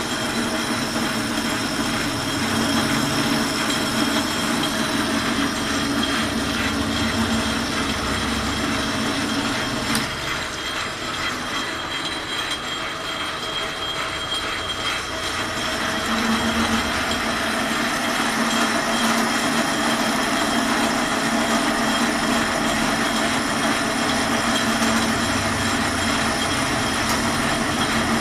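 Metal lathe running, its tool turning the hard outer skin off a thick steel bar. The low cutting sound drops away for several seconds about ten seconds in while the machine keeps running, then picks up again.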